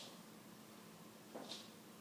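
Near silence: faint room tone with a low steady hum and one soft tap about one and a half seconds in.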